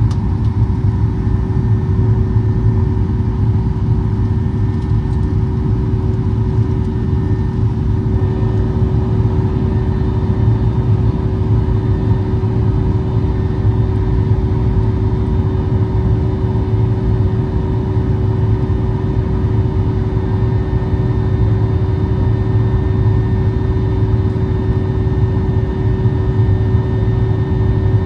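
Cabin noise of a Boeing 737-800 climbing after takeoff: its CFM56 engines make a steady low rumble, with a constant hum and fainter higher tones over it.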